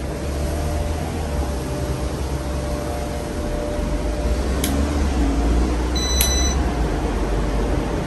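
Casablanca California Zephyr ceiling fan running steadily with five blades, a continuous rush of moving air with a low rumble and a faint hum. A sharp click about four and a half seconds in and a short high beep about six seconds in.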